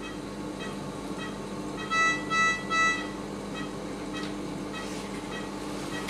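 Anaesthesia patient monitor beeping softly about every 0.6 s with the dog's pulse, with a louder run of three quick beeps about two seconds in, over a steady low hum.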